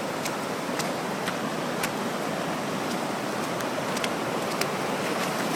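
Rushing river water over rapids, a steady full noise, with a few sharp ticks scattered through it.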